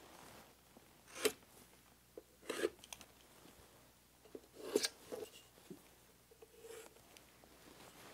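Marker drawing lines along a steel ruler on a pine board: a few short scratching strokes, with light handling of the ruler.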